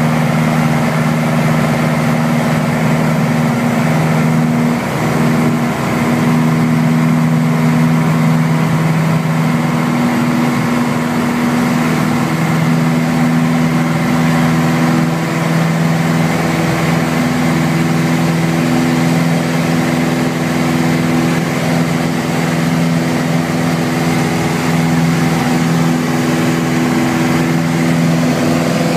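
Piper Warrior's four-cylinder Lycoming piston engine and propeller running steadily at takeoff power, heard from inside the cockpit, through the takeoff roll and into the climb.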